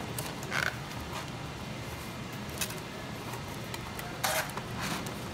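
Corrugated cardboard being folded by hand into a box: a few short scraping rustles as the flaps bend and slide against each other, over a steady low hum.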